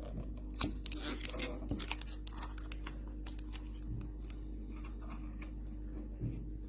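Scratching and clicking handling noise over a steady low electrical hum, with the clicks thickest in the first two seconds.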